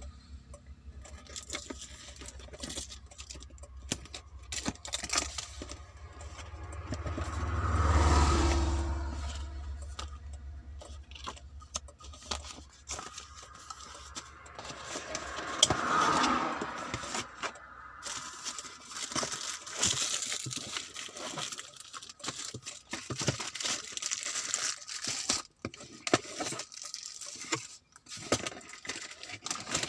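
Handling noises of packaging and a camera being unboxed: rustling, crinkling and many small clicks and taps. A low rumble swells and fades about eight seconds in, and a smaller swell comes around sixteen seconds.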